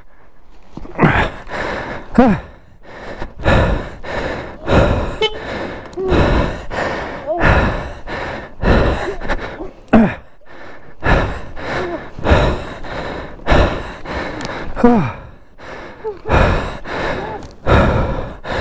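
A person breathing hard, one loud gasping breath about every second and a quarter, some ending in a voiced sigh that falls in pitch. It is the heavy panting of someone out of breath from exertion.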